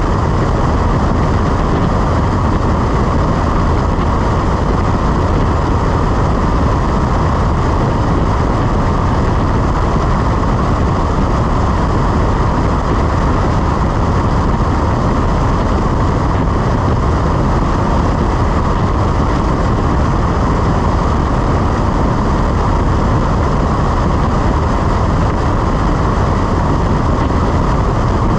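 Cessna 172 engine and propeller running steadily in flight, heard as an even, unchanging noise mixed with rushing air.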